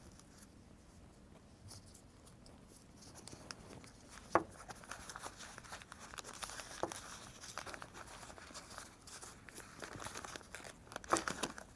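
Oil paper being unwrapped from a small metal part, crinkling and rustling faintly, with a few sharper clicks. It starts about three seconds in after a quiet start.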